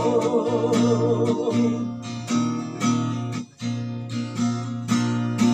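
Song music in a short instrumental gap between sung lines. A held, wavering note fades over the first two seconds, then chords are struck in a loose rhythm over a steady bass note, with a brief drop in level about three and a half seconds in.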